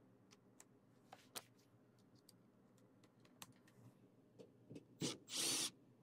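Handling noises at a sheet-metal furnace cabinet: a few faint clicks and taps, then a short, loud rasping burst about five seconds in.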